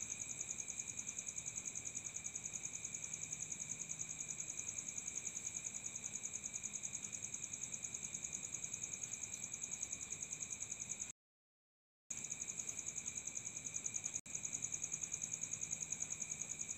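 Steady, high-pitched, pulsing chirr of insects at about five pulses a second, with a short total cut-out about 11 seconds in.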